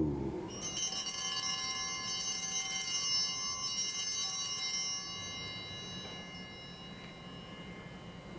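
Altar bells rung at the elevation of the consecrated host: a set of small bells shaken for about four seconds, then left to ring on and fade away.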